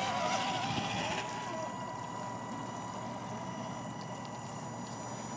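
Axial SCX10 Deadbolt RC crawler's electric motor whining as it drives through water, its pitch wavering with the throttle early on, over a steady wash of splashing and trickling water.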